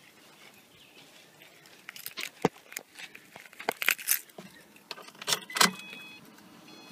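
Car keys jangling and clicking as they are handled and put into the ignition, a run of sharp metallic rattles. Near the end a few short electronic beeps sound.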